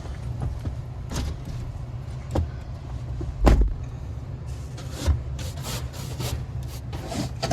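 Low steady rumble of a car heard from inside the cabin. A single heavy thump comes about halfway through, with lighter knocks and a run of short rustling, scraping strokes near the end.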